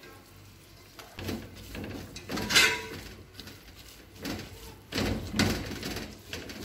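Metal spatula stirring and scraping a thick mixture of grated bottle gourd in an aluminium pot, in irregular scrapes and clatters against the pan that start about a second in.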